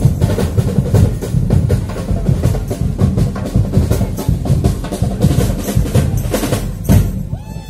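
Carnival percussion band drumming a fast, dense rhythm of bass and snare drums with clacking wood-block-like strikes. The drumming stops with a last strong hit near the end.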